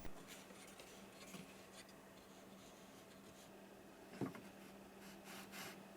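Very faint rubbing and scraping of wooden boards and homemade wooden clamps being handled and tightened, with one soft knock about four seconds in.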